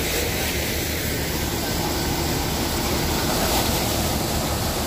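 Paddy thresher running steadily, driven by a John Deere 5055E diesel tractor, its drum threshing bundles of rice straw as they are fed in: a constant low mechanical hum with an even rushing noise over it.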